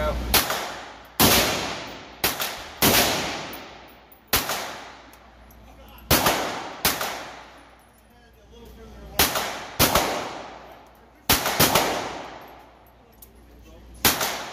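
About a dozen pistol shots, fired singly and in quick pairs at an uneven pace, each crack followed by a long echoing decay off the walls of an indoor range.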